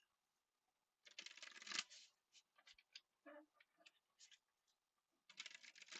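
Tarot cards being shuffled by hand in two short bursts, about a second in and near the end, with a few light card clicks between.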